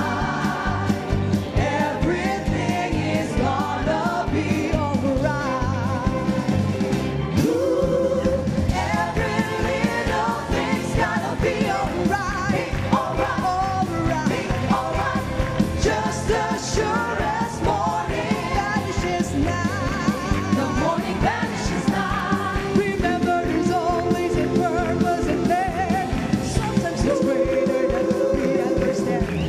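Worship song with singing over a full band accompaniment.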